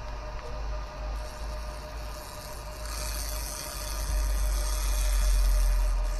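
A 200 W pulsed laser cleaning machine scans over varnished wood, giving a steady electrical hum. A high hiss of the pulses hitting and stripping the surface grows in from about three seconds in, over a low rumble.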